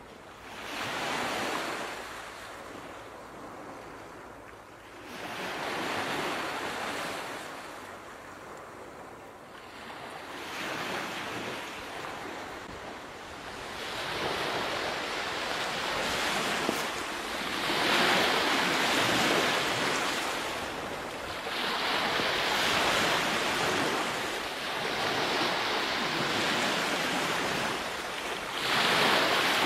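Ocean surf: waves breaking and washing in, a rushing noise that swells and fades every few seconds.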